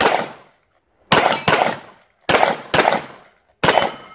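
A pistol fired six times in quick succession. One shot, then two pairs each about half a second apart, then a last shot near the end, every report trailing off in a short echo.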